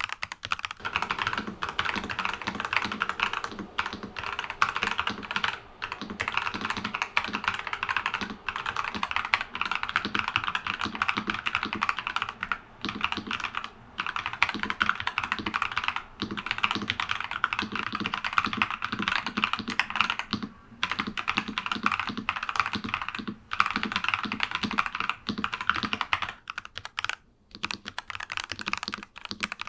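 Fast continuous typing on a NuPhy Halo 96 mechanical keyboard fitted with Akko Crystal Silver switches, broken by short pauses every few seconds. The keystrokes thin out near the end.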